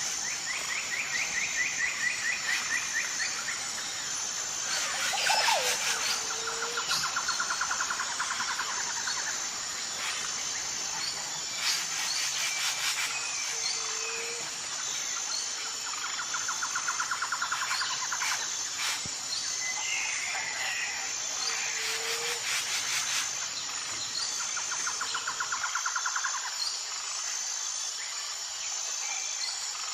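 Jungle ambience: a steady high insect trill runs throughout while birds call, with rapid two-second trills repeating every few seconds, short low hoots, and scattered chirps.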